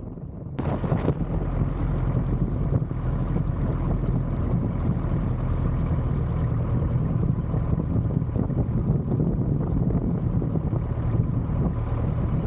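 Piper J3 Cub's engine running steadily at low power while taxiing, a steady low drone with propeller and wind noise. A short burst of hiss comes about half a second in.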